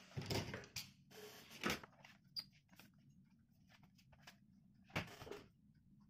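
ASUS laptop being handled and turned over on a wooden table: a few light knocks and scrapes, with sharper knocks about a second and a half in and again near five seconds.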